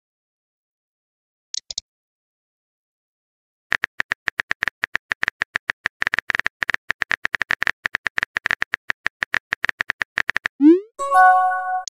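Texting-app sound effects: a couple of short ticks, then several seconds of rapid keyboard-typing clicks while a message is composed, ending near the end in a rising swoosh and a short chime as the message is sent.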